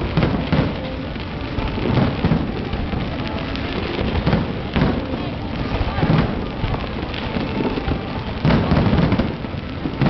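Fireworks display: aerial shells bursting in a string of booms a second or two apart, over a continuous crackle of sparks.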